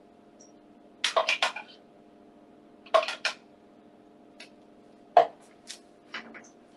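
Kitchen utensils and crockery clinking and knocking against plates and a pan in short clusters, with the sharpest, loudest knock about five seconds in, over a faint steady hum.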